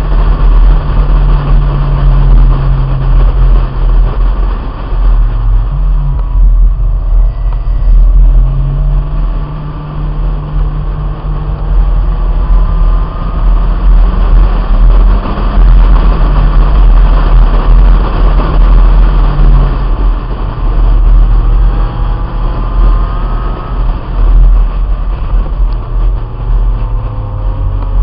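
Wind rushing over a roof-mounted microphone on a 1997 Honda Integra at track speed, with the engine running underneath. Its pitch climbs several times as the car accelerates out of corners.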